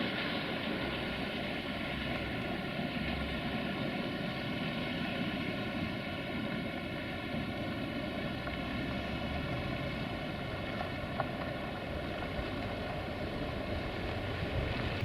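A train's drive running steadily, a constant pitched drone over rail rumble.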